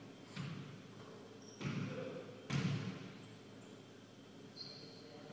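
A basketball bouncing on a hardwood gym floor: three sharp thuds within the first three seconds, at uneven spacing, each ringing briefly in the hall.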